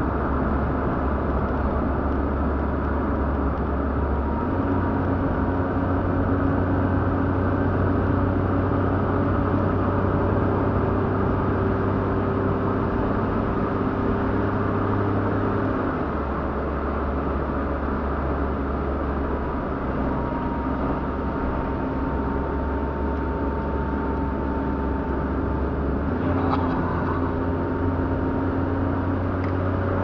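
Steady engine and road noise heard from inside a moving car. The engine's low hum steps up in pitch about four seconds in, drops back about sixteen seconds in, and rises again near the end.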